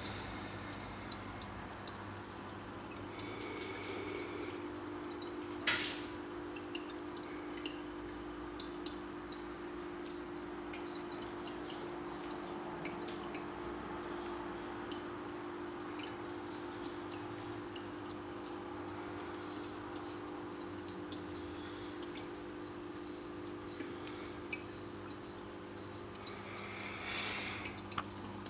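A cricket chirping continuously in short, evenly repeated high-pitched pulses, over a low steady hum.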